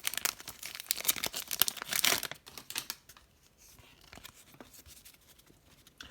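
Foil wrapper of a trading-card pack being torn open and crinkled for about two seconds, then fainter scattered rustles and ticks.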